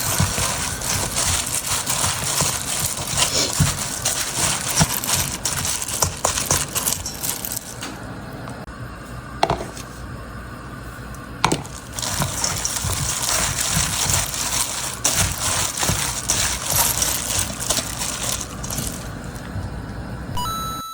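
Rustling and crinkling with many scattered clicks and knocks, as from plastic food packaging and containers being handled. It eases off for a few seconds around the middle, where two sharp clicks stand out, then picks up again.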